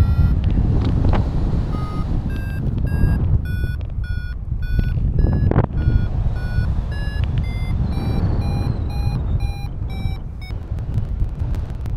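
XCtracer Mini IV variometer beeping about twice a second, its pitch stepping higher over the first several seconds: the climb tone that signals the glider is rising in lift. Wind rushes over the microphone underneath.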